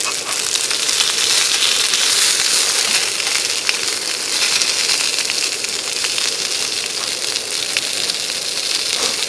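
Grilled fish sizzling steadily as it is reheated in a foil-lined frying pan, with scattered small crackles.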